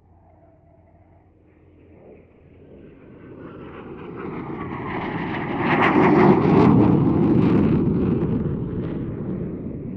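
Eurofighter Typhoon's twin Eurojet EJ200 turbofans in afterburner during a display pass. The jet noise builds over a few seconds to its loudest about six seconds in, then slowly fades as the jet turns away.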